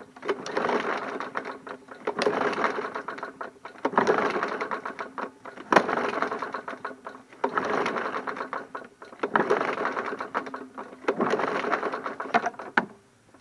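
Recoil starter rope pulled seven times in a row, about every two seconds, each pull cranking the MTD Yard Machines push mower's engine over with a fast run of ticks. A compression gauge is threaded into the spark plug hole, and it reads only about 26 PSI: very low compression.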